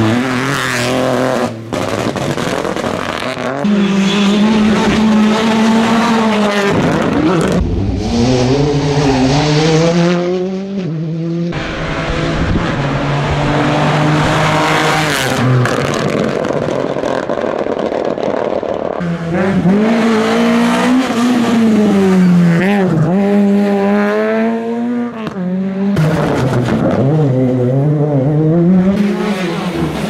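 Rally cars driving hard on a tarmac stage, one after another across several short clips. Engines rev high and drop back again and again as the drivers shift gears and brake for corners.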